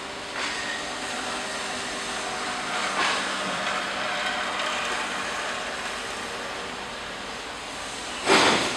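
Steady machinery noise with a faint hum running through it, and a short, loud rush of noise near the end.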